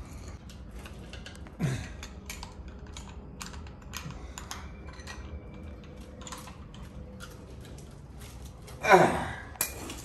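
Metal hand tools and brake hardware clicking and clinking as a Wilwood brake caliper is worked on at the front wheel. Two short sounds falling in pitch, the louder one near the end.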